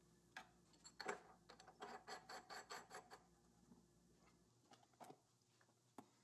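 Faint metal clicks and scrapes, about five a second for two seconds and then a few single clicks, as a homemade exhaust pipe flange is worked and tightened into the exhaust port of a Willys-Knight sleeve-valve engine with a metal tool.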